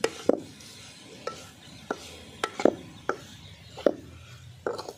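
Metal spoon scraping and clinking against a metal kadai as an okra stir-fry is stirred, with sharp, irregular knocks roughly every half second.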